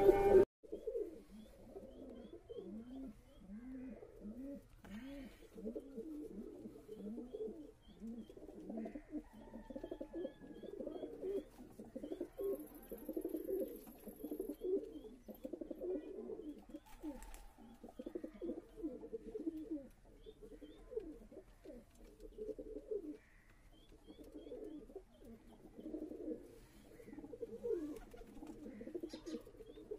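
Domestic high-flyer pigeons cooing over and over, a continuous run of short rolling coos that rise and fall in pitch.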